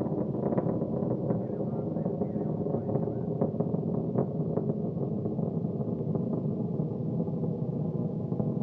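Soyuz-2.1a rocket's first-stage engines burning during ascent: a steady rumbling roar with continual crackles.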